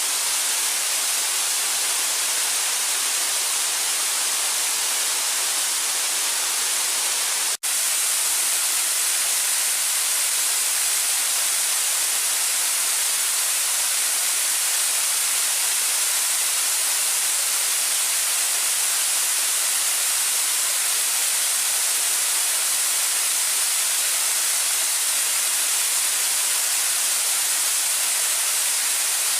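Waterfall rushing as a steady, even hiss, bright and thin with little depth. It drops out for a split second about seven and a half seconds in, then carries on unchanged.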